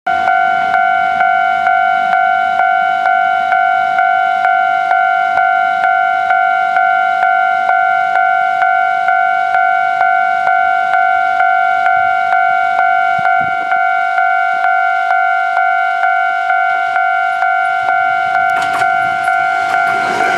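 Japanese railway level-crossing warning bell ringing steadily, about two strikes a second, each strike a ringing electronic tone. Near the end the clatter of the approaching train starts to rise under it.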